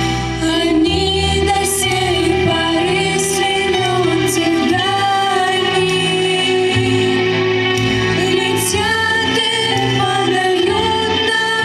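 A song: a female voice singing a slow melody over instrumental accompaniment with a steady bass line.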